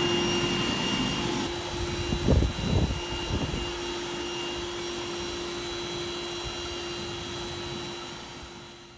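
Industrial dust extractor vacuum and a concrete floor grinder running together, with a steady motor whine over a rushing airflow. A few low rumbling bumps come a couple of seconds in, and the sound fades out at the end.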